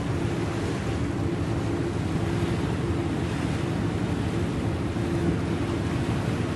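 Steady waterborne ambience: water and wind noise over a low, even boat-engine drone. There are no distinct events.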